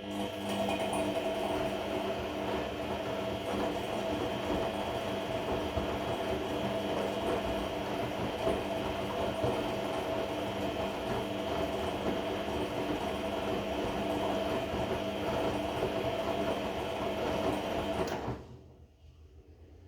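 Regal 1229 T washing machine's motor and drum turning during a cotton 30 °C wash: a steady mechanical whirring with a whine in it, making a belt-like noise that the owner finds strange. It starts suddenly and cuts off about eighteen seconds in.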